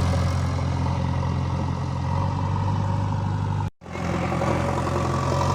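JCB 3DX backhoe loader's diesel engine running steadily, with a brief sudden break in the sound about two-thirds of the way through.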